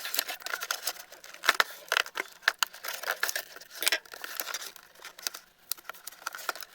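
Plastic toy pieces and packaging being handled: irregular clicks, taps and rustling, with a few sharper knocks.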